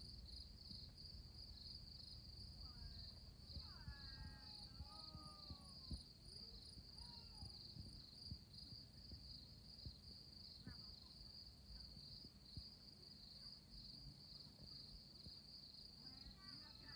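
A faint, steady chorus of crickets: a high, evenly pulsing trill that carries on without a break.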